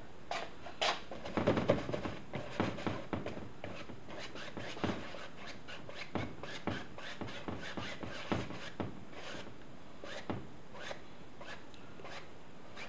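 Paintbrush scrubbing paint onto a stretched canvas in quick, irregular scratchy strokes with soft knocks against the canvas, heaviest about a second and a half in, then sparser.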